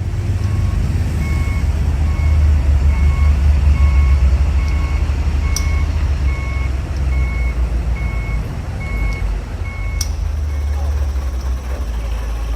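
Heavy truck's diesel engine running hard while its reversing alarm beeps about twice a second; the beeping stops about ten seconds in.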